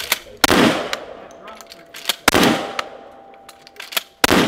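Pump-action 12-gauge shotgun fired three times about two seconds apart, each shot trailing off in a ringing echo, with the clack of the slide being racked between shots.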